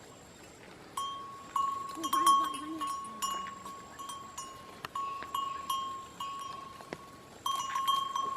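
Bells hung on grazing goats' necks clanking irregularly, a few strikes a second, each ringing at the same clear pitch; they start about a second in.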